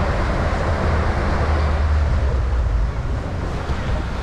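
Steady low rumble of a boat's engine, with wind and water noise over it, easing slightly about three seconds in.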